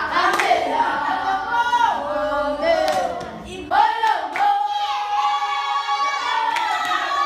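Choral singing: a group of voices singing a song together, with a long held note about halfway through.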